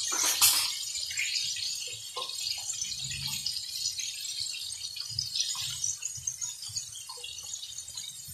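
Flour-and-egg-coated chicken pieces frying in a pan of hot oil, a steady sizzle as the coating crisps. A sharp clatter about half a second in, then light clicks of metal tongs turning the pieces.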